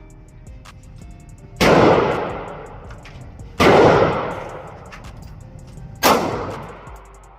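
Three gunshots about two seconds apart, each followed by a long fading echo.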